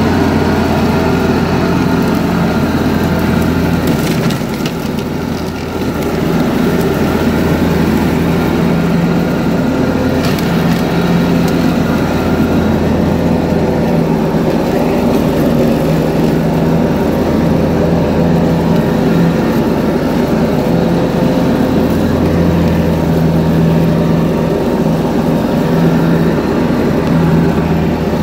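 John Deere 445 garden tractor's V-twin engine running steadily under load while the mower deck blades cut wet, tall grass. Loudness dips briefly about five seconds in.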